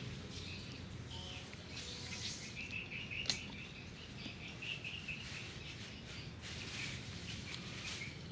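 Small birds chirping in quick runs of short, high notes, with one sharp click about three seconds in.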